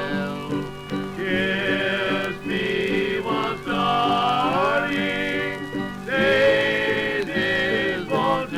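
Old-time string band music from a 1927 78 rpm record, playing continuously with held, wavering melody notes and sliding pitches.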